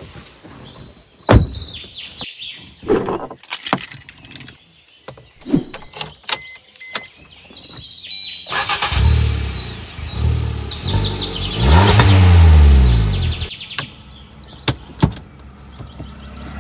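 Scattered clicks and knocks, then a motor vehicle passing close by, its engine note swelling, bending in pitch and fading, loudest about twelve seconds in.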